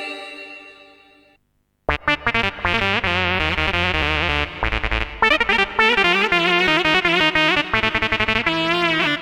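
Korg Krome keyboard playing a sound-pack demo: a held chord fades away, and after a short pause about two seconds in a full backing arrangement with bass, drums and a lead melody with vibrato begins.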